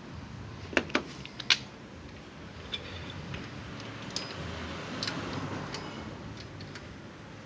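Metal tools and parts clinking while a belt tensioner bearing is fitted in an engine bay. There are three sharp clinks in the first second and a half, then scattered lighter taps.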